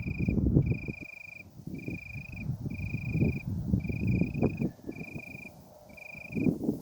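Wind gusting on the microphone in low, uneven rumbles. Over it an insect sings a steady high trill, each trill under a second long, about one a second.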